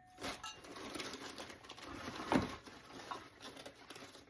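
Rustling and light clattering as glittery decorative bird cages are lifted out of a storage tote and handled, with one louder knock about two seconds in.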